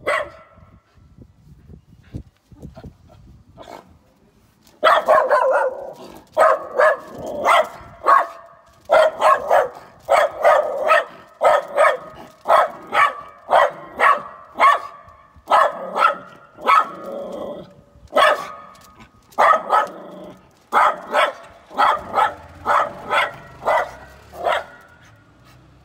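A schnauzer barking: one bark, a pause of about five seconds, then a long run of rapid barks in quick clusters of two to four, at someone beyond the gate.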